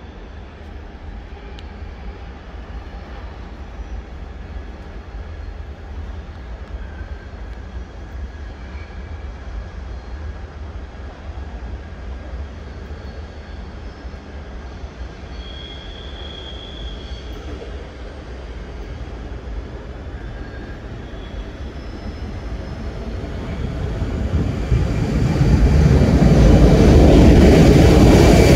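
A departing locomotive-hauled passenger train rolling away over station tracks and points, a steady low rumble that fades into the distance, with a brief faint high squeal about halfway. Near the end a much louder rumble swells up.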